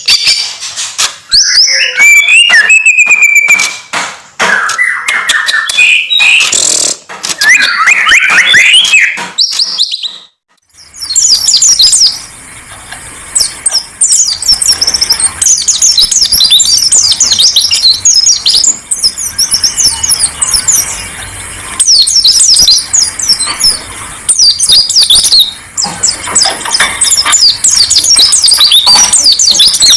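Caged songbirds singing loudly in a varied, fast-changing song. About ten seconds in, the song breaks off briefly and gives way to a different bird's rapid, high-pitched twittering.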